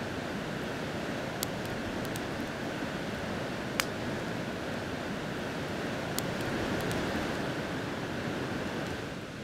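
Wood campfire of split kindling burning, giving a handful of sharp pops and crackles, the loudest about four seconds in, over a steady rushing noise.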